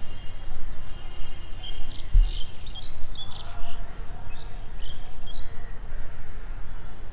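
Birds chirping in short, quick calls, scattered through the middle of the clip, over a steady low rumble with a dull thump about two seconds in.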